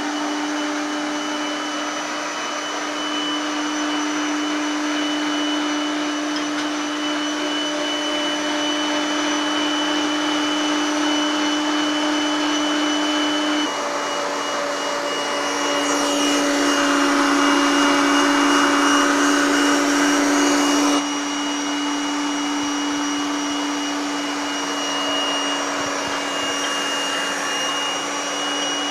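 Electric meat grinder running steadily while mincing boiled chicken liver, its motor giving a loud, even hum. The hum shifts slightly in pitch about halfway through and grows louder for about five seconds after that.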